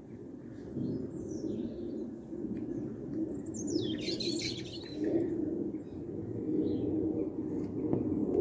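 Songbirds chirping and calling in short, scattered notes, the clearest a falling call about four seconds in, over a steady low rumble.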